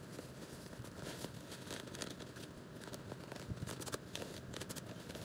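A black plastic mailer bag and a printed plastic pouch of cat litter crinkling and rustling as they are unwrapped by hand, with many small sharp crackles.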